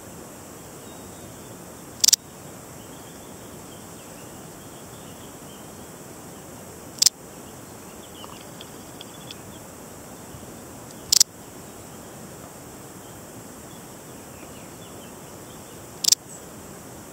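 Balearic saddle bush-cricket (Parasteropleurus balearicus) stridulating: four short, sharp, high-pitched chirps, spaced about four to five seconds apart, over a faint steady background hiss.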